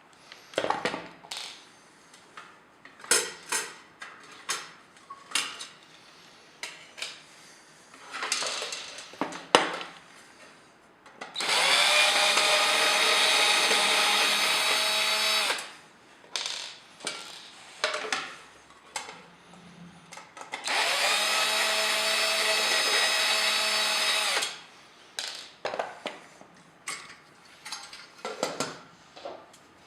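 Electric screwdriver running in two bursts of about four seconds each, spinning up at the start of each, while screws are driven in or out of an exhaust fan. Scattered clicks and rattles of parts being handled come between the bursts.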